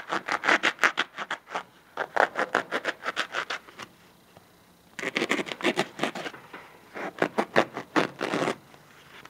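A small saw blade cutting through a foam pool noodle: quick back-and-forth scraping strokes in four bouts with short pauses between.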